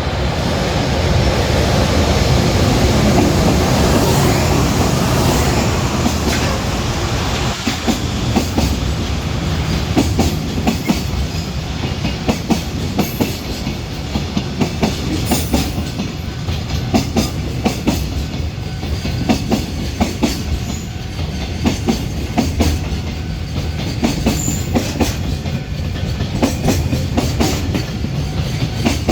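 EH500 electric freight locomotive passing close by with a loud rush, followed by its container wagons rolling past, the wheels clicking steadily over the rail joints in a regular clickety-clack.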